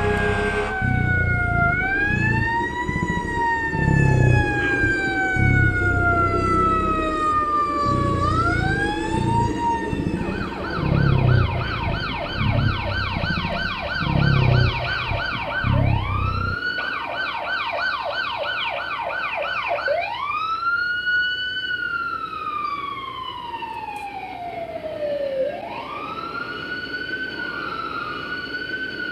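Electronic emergency-vehicle siren cycling between a slow rising-and-falling wail and a rapid yelp, then back to the wail. Under it for the first half runs a low, evenly pulsing beat that stops abruptly about 16 seconds in.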